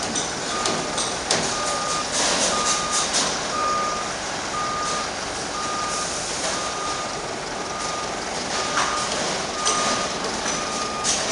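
A reversing alarm on a construction vehicle beeping at an even pace, roughly one beep every two-thirds of a second, over the running noise and clatter of site machinery.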